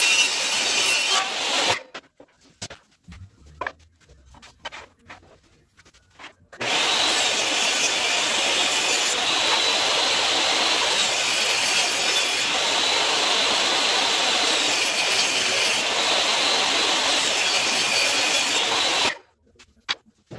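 Table saw running and cutting wood, ripping boards along the fence. It stops about two seconds in, leaving a few seconds of light knocks from the wood being handled, then runs again steadily for about twelve seconds and stops.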